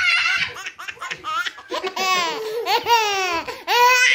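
Baby laughing: a run of short, choppy chuckles, then three longer high-pitched squealing laughs.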